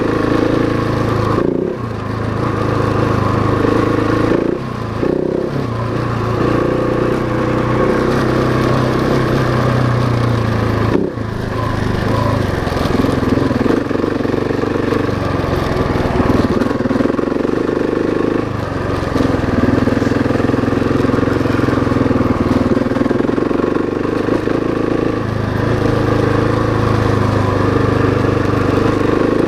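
Husqvarna 701 Enduro's single-cylinder four-stroke engine running under way on a gravel road, the engine note rising and falling with the throttle and dropping briefly a few times.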